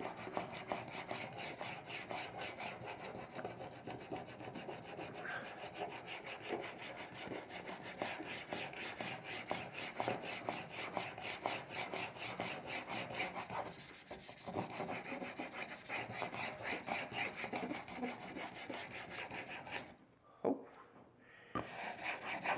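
An 80 mm Japanese plane blade in a wheeled honing guide, rubbed back and forth on a wet 500-grit water stone in steady, repeated grinding strokes as the bevel is worked to raise a burr. The strokes stop briefly near the end, with a single knock in the pause.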